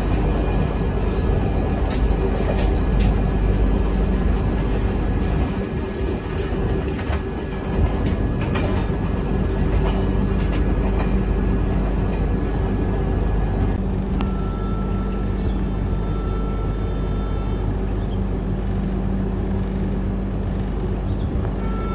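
Express passenger train running on the rails, heard from on board: a steady rumble with sharp clicks and knocks from the wheels and coach. About two-thirds of the way through, the sound changes abruptly to a duller, steadier run with a humming tone.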